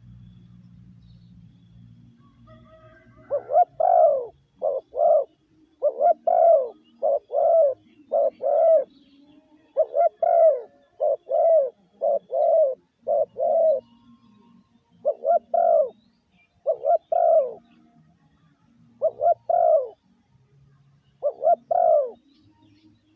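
Spotted dove cooing over and over: groups of short, quick coos, starting about three seconds in and going on with short pauses between groups. This is the lure coo used to call wild doves in.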